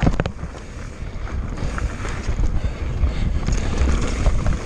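Wind rushing over the microphone and mountain bike tyres rolling over loose, hard-packed dirt on a fast descent, a steady rumble with a few sharp clicks just after the start.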